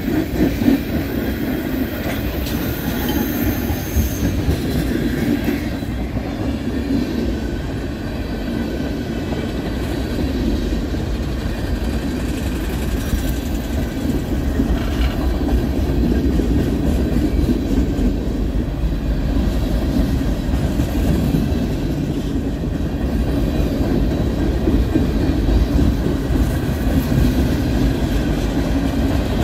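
Freight train rolling past at close range: a steady rumble and clatter of tank cars and boxcars on the rails.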